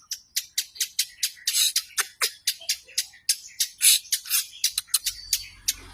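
Long-tailed shrike (cendet) calling in a rapid run of short, sharp, harsh notes, about four to five a second, that stop shortly before the end. A low steady hum comes in near the end.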